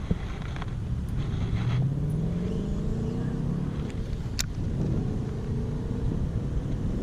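Motor vehicle engine running, its pitch rising as it speeds up about a second and a half in, over a steady low rumble, with a few sharp clicks.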